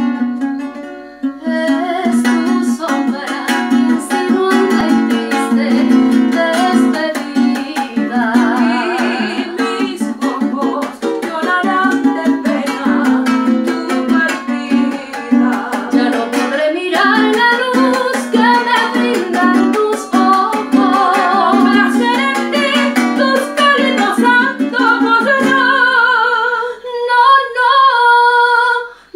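Venezuelan cuatro strummed in a steady rhythm, accompanying women singing a duet in Spanish with vibrato. Near the end the strumming thins out beneath a held, wavering sung note.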